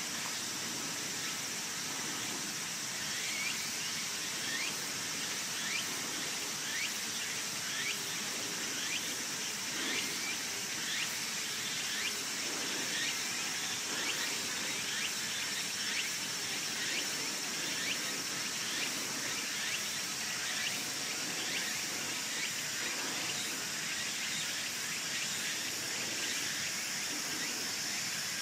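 Outdoor ambience: a steady high, insect-like buzz, with a short chirp repeated a little under twice a second.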